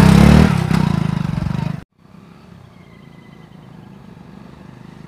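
Motorcycle engine revving as the bike pulls away, its pitch rising in the first half second. The sound cuts off abruptly about two seconds in, leaving a faint steady hum of distant motorcycle engines.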